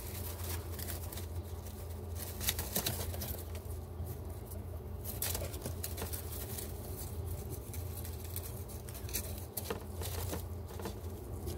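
A young squirrel scrabbling and rustling through dry hay and leaves, with many light, scattered taps and scratches, over a steady low hum.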